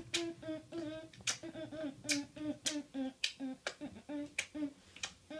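A boy beatboxing: a hummed tune in short held notes, punctuated by sharp, clicky percussive mouth sounds about once or twice a second.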